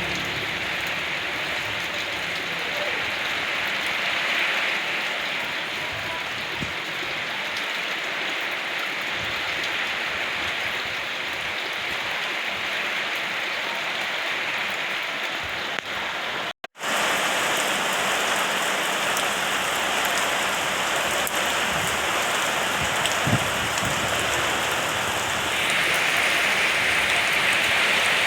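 Steady rain falling, an even hiss. The sound drops out for a split second about two-thirds of the way through, then comes back slightly louder.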